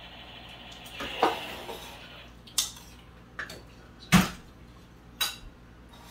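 Cutlery clinking against ceramic bowls and plates during eating: about five separate sharp clinks, the loudest about four seconds in.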